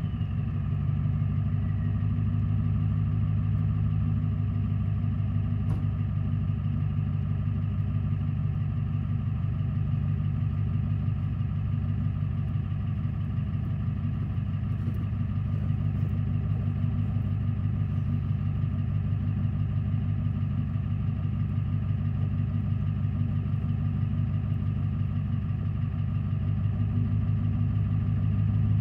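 Ford E350's 7.3 L PowerStroke V8 turbo diesel idling steadily through its dual 5-inch exhaust, just after a rev, with a faint whine falling away in the first couple of seconds as the revs settle.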